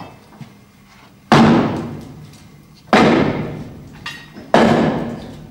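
Three heavy hammer blows on steel, evenly spaced about a second and a half apart, each ringing away over about a second, driving a bolt into the locomotive's buffer beam to line up the holes.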